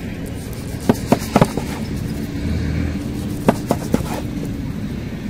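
Chef's knife cutting through a rolled, sauce-soaked flatbread and knocking on a wooden cutting board: two quick runs of sharp knocks, about a second in and again about three and a half seconds in. A faint steady low hum lies underneath.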